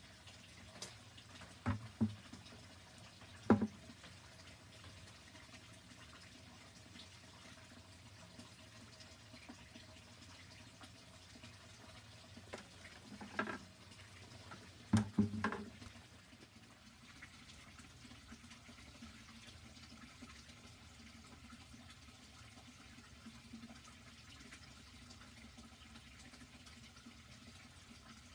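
Faint water sound with several short clunks as buckets and containers are handled: a few near the start and a louder pair about halfway through.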